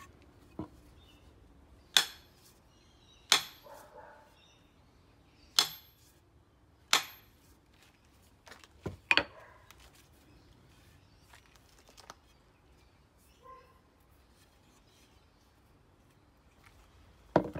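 Sharp hammer knocks on a steel axe head as it is fitted onto a wooden handle. About seven strikes come at uneven spacing, including a quick pair midway and one near the end, each with a short high metallic ring.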